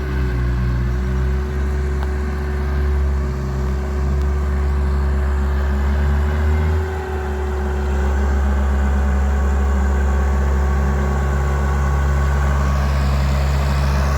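Bobcat skid-steer loader's engine running steadily under work, its note dipping and shifting briefly about six to seven seconds in, then holding steady and a little louder.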